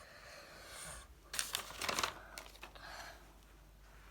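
Crinkling and rustling of plastic as small toy pieces are handled, with a cluster of louder sharp crackles a little past a second in.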